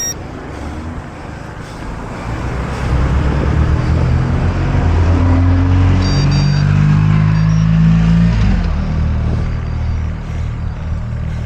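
A motor vehicle's engine passing close by: it grows louder over a couple of seconds, holds, drops in pitch about eight seconds in, then fades away.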